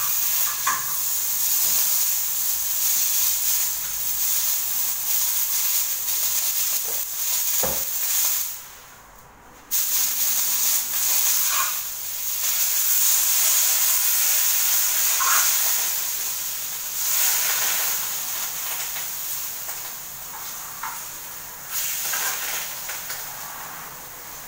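Steak searing in a hot frying pan, a steady loud sizzle with a few small pops of spattering fat. It breaks off for about a second roughly a third of the way in, then resumes.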